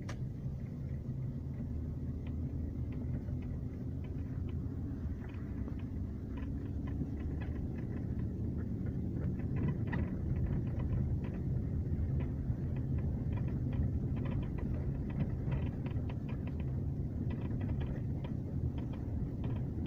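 Inside the cabin of a moving VAZ-2112: a steady low road and engine rumble, with faint irregular creaks and ticks from the rear of the interior, more frequent in the second half. The owner traced these squeaks to parts that had come loose in the rear seats.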